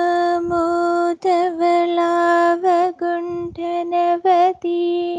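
A young woman singing a devotional prayer solo and unaccompanied, heard over a video call. She holds long notes mostly on one pitch, with a few quick wavering ornamental turns and short breaks for breath between phrases.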